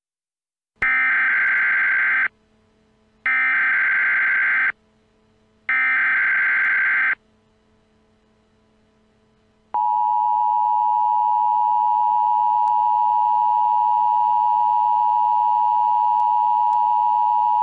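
Emergency Alert System tones: three short bursts of harsh, screeching SAME header data, each about a second and a half long and about a second apart. After a pause of about two and a half seconds comes the steady two-tone EAS attention signal, held for about eight seconds.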